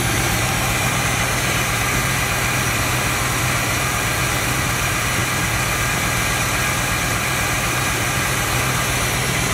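1972 Dodge D100's Chrysler 318 V8, a two-barrel carburettor with no air cleaner and glass-pack exhaust on the stock manifolds, idling warm, steady and smooth.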